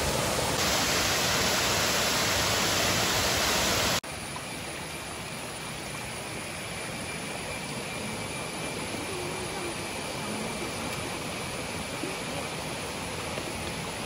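Rushing water of a rocky waterfall cascade, a steady hiss; about four seconds in it drops abruptly to a quieter, steady hiss of water.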